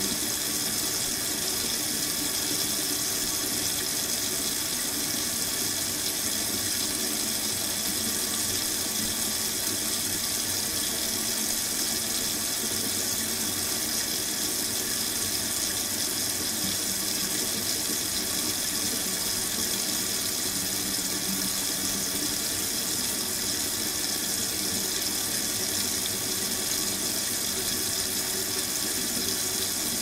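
Water running steadily from a kitchen sink faucet into the basin, an even rushing hiss that does not change.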